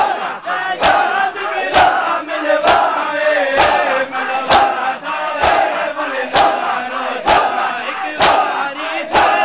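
Mourners doing matam, beating their chests with open hands in unison about once a second, with the crowd chanting in time between the strikes.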